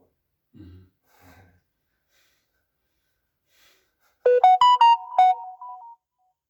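A short, loud run of about five quick electronic piano-like notes, rising then falling in pitch and over in under two seconds.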